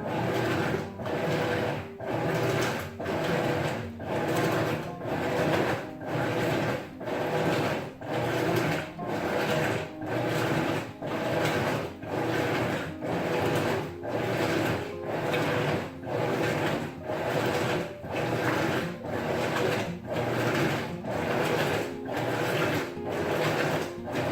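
Maytag top-load washer with an agitator running a wash, its motor and drive running in a steady rhythm that dips briefly about once a second as the agitator reverses stroke.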